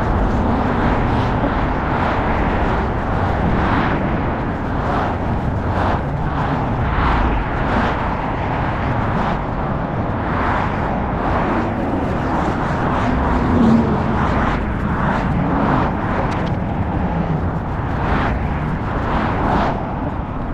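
Skateboard wheels rolling on pavement: a steady rumble with brief sharper sounds about once a second.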